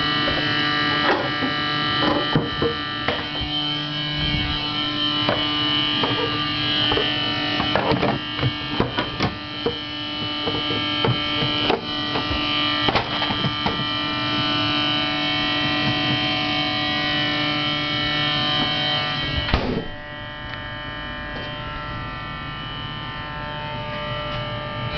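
GE refrigerator giving off an irritating, abnormal noise: a steady buzzing hum made of many held tones, with scattered ticks and clicks over it. A little over three-quarters of the way through it gets noticeably quieter.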